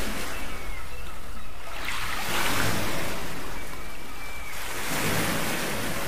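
Small sea waves washing up on a sandy beach, the hiss of the surf swelling and easing every couple of seconds.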